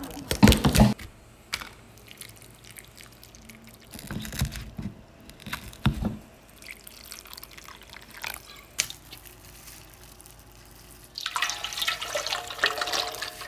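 Kitchen prep sounds: a knife blade crushing garlic cloves on a wooden cutting board with a few loud knocks at the start, then a wooden spoon mashing chilies and garlic in a wooden dish with scattered knocks. About eleven seconds in, cooking oil pours into a wok.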